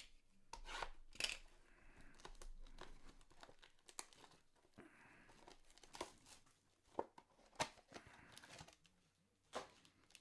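Faint crinkling and tearing of trading-card pack wrappers being opened by hand, with scattered sharp clicks and snaps of cards and packaging being handled.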